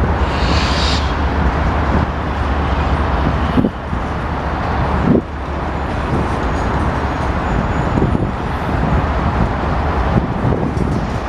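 Union Pacific freight train's boxcars rolling past, a steady rumble of steel wheels on rail under a low hum, with two clunks about three and a half and five seconds in.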